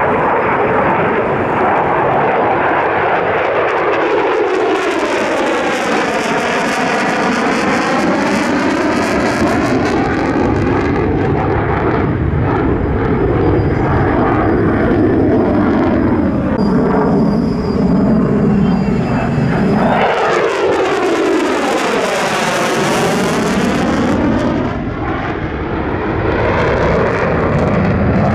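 Mitsubishi F-2 fighter's single afterburning turbofan jet engine running loud as the jet flies display manoeuvres. The rushing noise takes on a swirling, phasing sweep as the jet passes, first a few seconds in and again after about twenty seconds.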